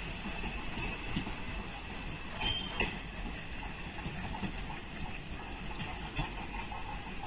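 A train running on the rails: a steady rumble with scattered clicks.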